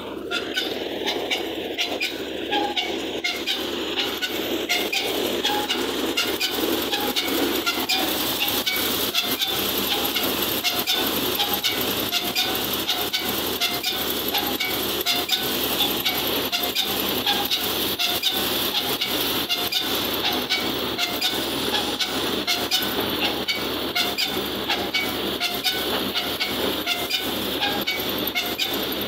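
Wheat thresher driven by a 50 HP tractor running steadily under load: a loud, constant mechanical clatter with a dense rapid rattle, while threshed grain falls from the spout onto a tarpaulin.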